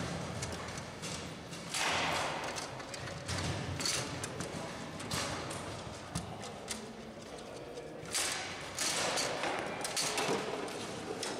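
Foosball play on a Bonzini table: irregular sharp knocks and thuds as the players' rod figures strike and pass the ball against the table.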